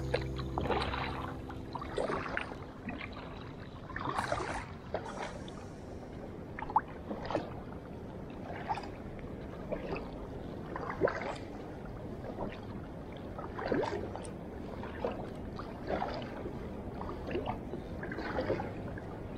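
Kayak paddle strokes: the double-bladed paddle dipping and pulling through the water in a steady rhythm, a short splash roughly every second and a bit. The tail of background music fades out in the first second or so.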